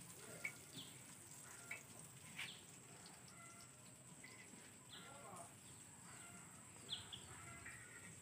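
Near silence with faint, scattered bird chirps: short falling notes every second or so. A faint steady high-pitched whine sits underneath.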